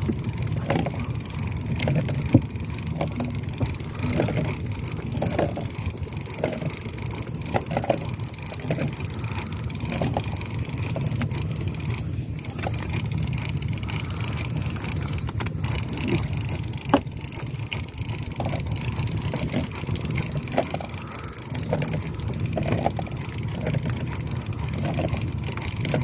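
Steady low rumble with frequent irregular knocks and clicks from a heavy boat rod and reel being worked while fighting a fish, with a few sharper knocks.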